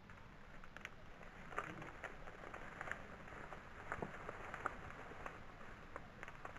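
Faint, irregular crackling and ticking of movement through dry field vegetation, with a few sharper clicks standing out about a second and a half and four seconds in.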